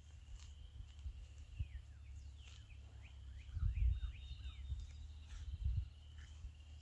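Dull thuds of a small hand tool digging into wet clay soil, loudest about halfway through and again near the end, over a steady high trill and a bird singing a run of falling notes.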